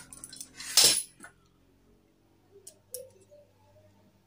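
Metal parts of an air rifle being handled as a threaded cap on its cylinder is unscrewed: a short, loud scrape about a second in, then a few light metallic clicks.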